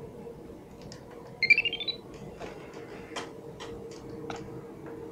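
Buzzer of an Arduino Simon Says game playing a quick rising scale of short beeps, about a second and a half in. Several light clicks follow.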